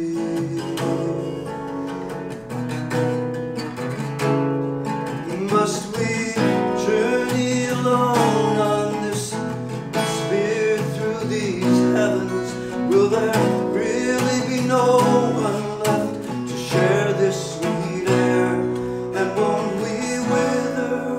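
Acoustic guitar played live, with a man's voice singing a melody over it from about six seconds in.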